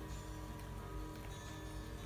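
Quiet background music with sustained notes.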